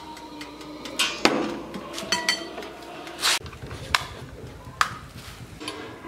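Several sharp metallic clinks and knocks, one with a short ringing, as a metal baking tray is pushed into a small electric toaster oven.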